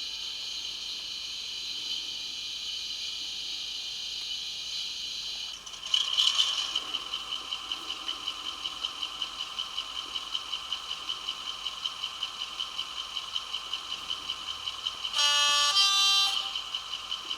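Model locomotive DCC sound decoder playing BR Class 35 Hymek diesel sounds. A steady high whine gives way, about six seconds in, to the engine starting and running with a fast, even pulsing beat, and a two-tone horn sounds briefly near the end. It plays through a small, temporarily fitted speaker that buzzes with vibration.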